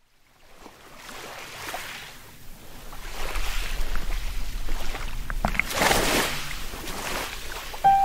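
Wind rushing over the microphone and sea water washing beside a boat, fading in from silence and swelling about six seconds in.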